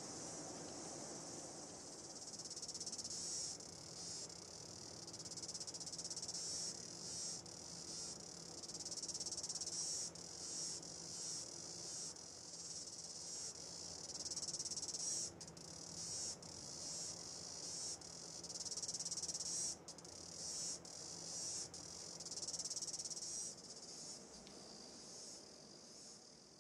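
Faint evening chorus of crickets: a steady high-pitched chirring that swells and dips, fading out near the end.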